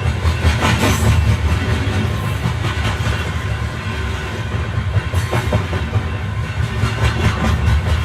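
Electric passenger train running on the line, heard from on board: a steady low rumble of wheels on track, with irregular clicks and clacks as the wheels pass over rail joints and points.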